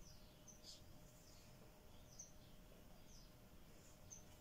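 Near silence: room tone with a string of short, faint, high bird chirps every half second or so, over a faint steady hum.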